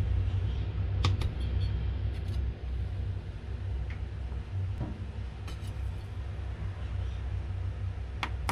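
Light clicks and taps from the buttons of a digital kitchen scale being pressed and a stainless steel bowl being set on it, over a steady low hum.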